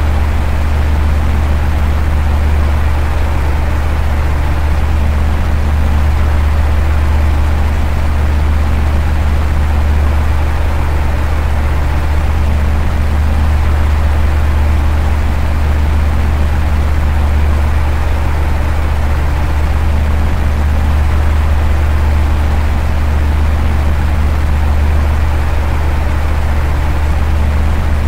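Electric fan running steadily: a constant low hum under an even rush of moving air, with no change in speed.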